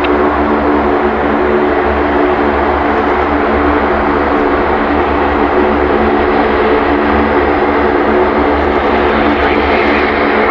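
Lockheed C-130J Hercules taxiing, its four Rolls-Royce AE 2100 turboprops and six-blade propellers running with a steady hum made of several held tones. A higher whine grows stronger near the end as the aircraft turns.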